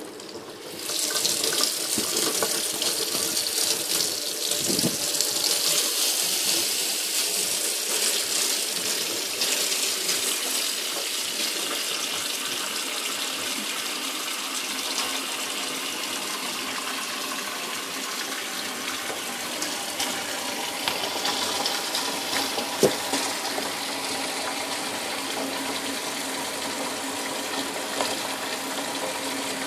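Kitchen tap turned on about a second in, then water running steadily from the faucet into a stainless-steel sink.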